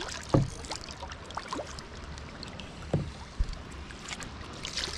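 Small waves lapping against a plastic kayak hull, with light splashes and two dull slaps of water on the hull, about half a second in and about three seconds in.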